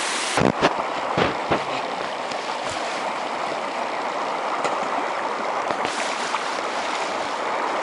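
Stream rushing steadily, running high after days of heavy rain, with a few short knocks in the first couple of seconds.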